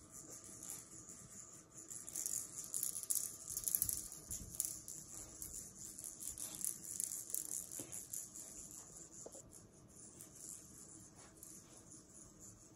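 Plastic rattle ball toy rattling as a dog noses and rolls it: a busy, fine rattle that is strongest in the first half and thins out later. It rattles rather than squeaks.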